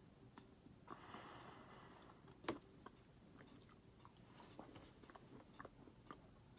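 Faint mouth sounds of a person biting and chewing a piece of cookie, with small wet clicks and one sharper click about two and a half seconds in.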